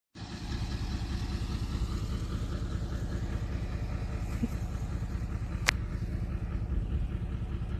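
A 4WD ute's engine idling steadily, with one sharp click a little past the middle.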